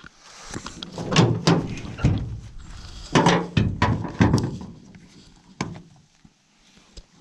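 A series of heavy thunks and knocks, about six of them in quick succession over a few seconds, then a single lighter knock.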